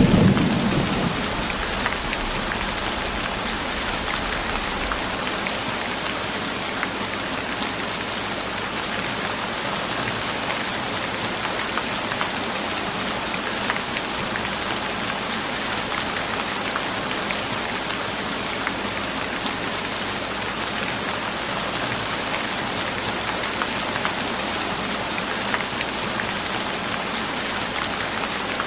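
Steady rain falling, an even hiss. The tail of a thunder rumble dies away over the first second or two.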